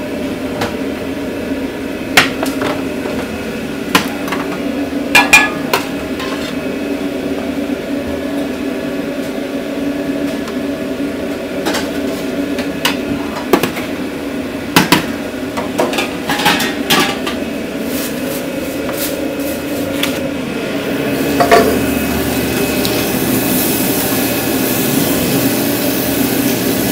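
Metal cookware and utensils clattering in a food truck kitchen: irregular knocks and clicks over a steady mechanical hum. About three-quarters of the way through, a steady hiss joins in.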